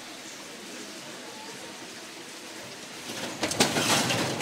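Steady low hiss of street ambience. About three seconds in, a louder rattling clatter begins from a metal roll-up shop shutter.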